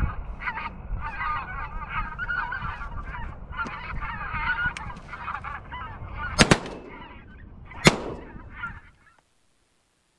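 Geese honking in a dense chorus over wind rumble, broken by three shotgun shots: two in quick succession about six and a half seconds in, a third over a second later.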